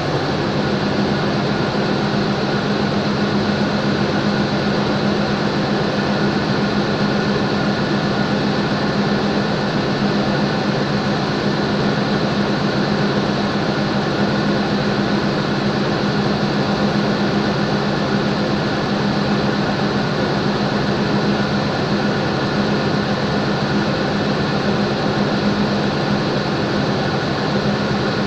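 Diesel-electric locomotive idling while standing still, a steady, unchanging drone with a low hum.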